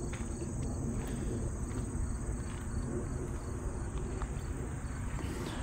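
Insects chirring steadily in the background over a louder low, steady rumble.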